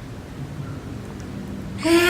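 Quiet room background with a faint low hum. Near the end a high-pitched voice starts a drawn-out sound, its pitch falling slightly.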